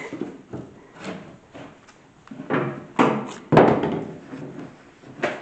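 Plywood floor-hatch panels knocking and scraping in their wooden frame as they are worked loose by hand, with a few sharp wooden knocks, the loudest about three seconds in.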